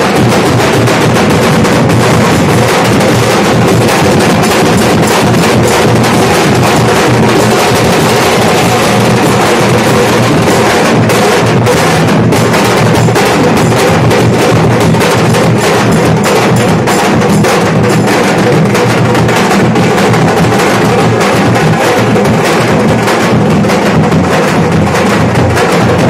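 Nashik dhol ensemble: several large double-headed dhol drums beaten with sticks in a loud, fast, continuous rhythm.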